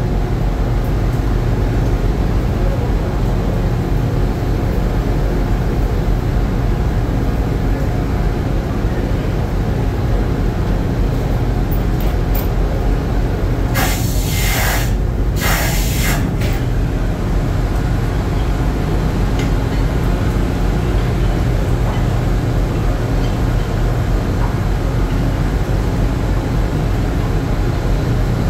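Steady, loud low drone of a fishing processor vessel's machinery on the trawl deck, with two short bursts of hiss about halfway through.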